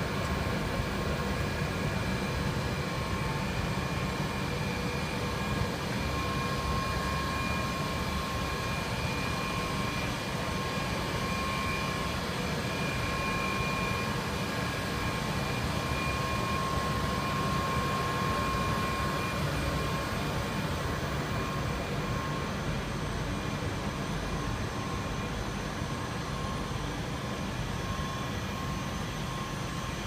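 Rubber extrusion and vulcanization line running: a steady mechanical hum and rumble with a faint steady whine.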